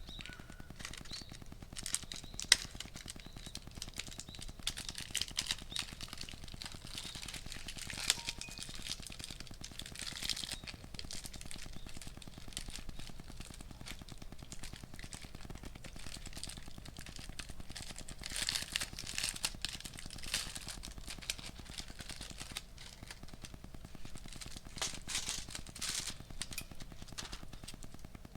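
Wood fire crackling, with irregular sharp pops and a couple of louder pops early on.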